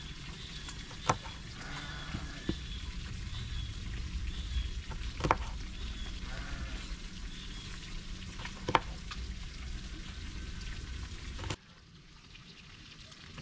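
Kitchen knife slicing calamansi on a wooden cutting board: a few sharp knocks of the blade on the board, spaced a few seconds apart, over a steady background hiss. The hiss drops off suddenly near the end.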